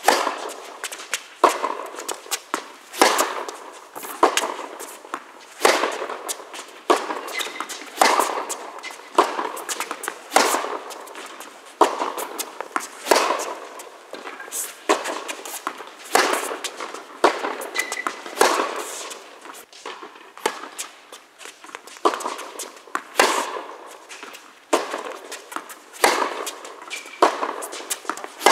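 Tennis ball struck back and forth in a baseline rally: sharp pops of racket strings hitting the ball about once a second, with quieter ball bounces on the hard court in between. Each hit echoes in the indoor tennis hall.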